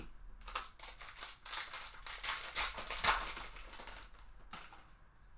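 Foil trading-card pack wrapper being torn open and crinkled by hand, a run of crackling rustles that is loudest in the middle and fades out near the end.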